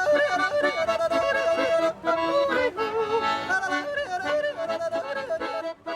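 Swiss yodelling with accordion accompaniment, the voice leaping between notes over the accordion's sustained chords.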